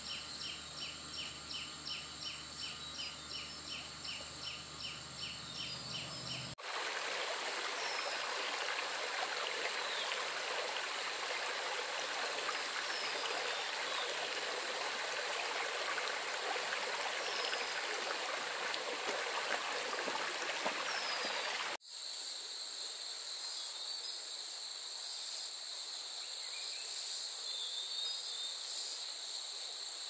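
Forest sounds in three hard-cut segments. First a high call repeats a few times a second, then a stream rushes steadily, and then a steady high chorus of insects pulses.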